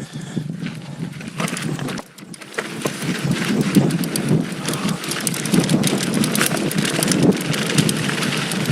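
Full-suspension mountain bike (2019 Giant Stance 2) riding down a loose dirt trail: tyres crunching and rattling over gravel and stones, with wind on the microphone, louder from about two and a half seconds in.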